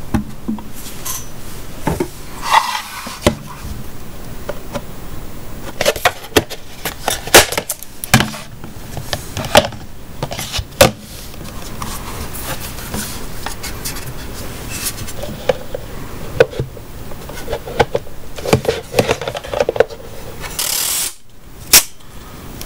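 Hand-handling noise of a small plastic-cased video monitor and a blue plastic basket on a wooden tabletop: scattered clicks, knocks and rubbing of plastic on wood. Near the end comes a brief hiss, under a second long, that ends in a sharp click.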